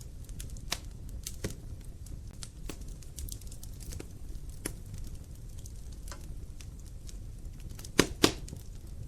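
Wood fire burning in a fireplace: logs crackling with scattered sharp pops over a low, steady rumble, with two louder pops close together near the end.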